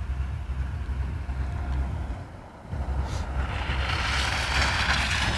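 A low rumble with wind on the microphone, then, after about three seconds, a VW Vento saloon driving across slush: engine running and tyres hissing through wet snow, growing steadily louder as it approaches.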